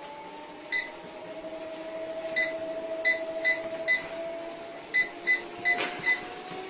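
Treadmill running with its motor whining in a steady tone that rises slowly in pitch, as the speed is stepped up. About ten short electronic beeps from the console's buttons come at irregular intervals, several in quick runs toward the end.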